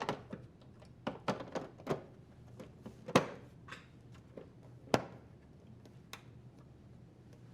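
Inner door frame being set onto an LG dryer door: a run of light knocks and clicks as the parts are handled and fitted, with two louder thunks about three and five seconds in.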